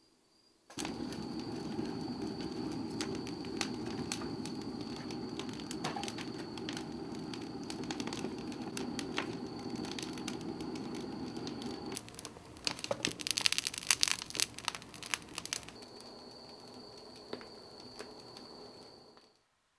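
Wood-fired Bizen kiln burning hard: a steady low roar from the firebox with constant crackling of the wood, the kiln's 'cry' that shows it has reached firing temperature. About twelve seconds in, a few seconds of dense, loud crackling as freshly stoked wood slabs catch, then softer crackling until it cuts off just before the end.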